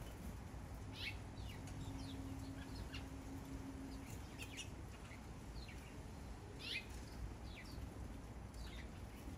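Backyard songbirds chirping, many short sharp calls that sweep down in pitch, scattered irregularly throughout, over a low steady background rumble. A faint steady hum sounds for a couple of seconds near the start.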